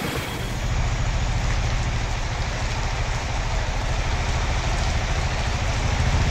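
Heavy rain falling on a city street with traffic passing: a steady hiss of rain over the low rumble of vehicle engines and tyres on the wet road, growing louder about a second in.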